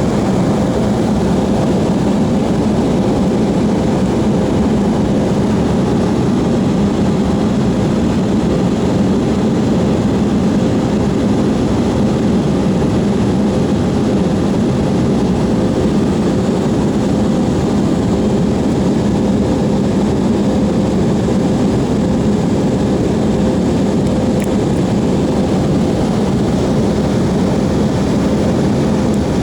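Airliner cabin noise in flight: the steady drone of engines and airflow, with a faint steady hum running through it.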